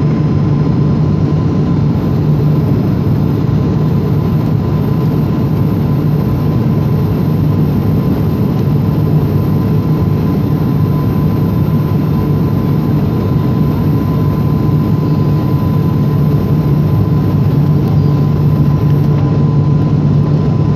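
Airliner cabin noise on the approach to land: the steady drone of the engines and rushing airflow heard inside the passenger cabin, a low hum with a faint constant whine above it.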